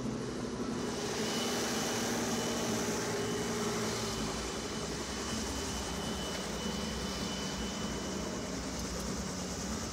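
Helicopter engine and rotor running, a steady mechanical noise with a thin high whine over it.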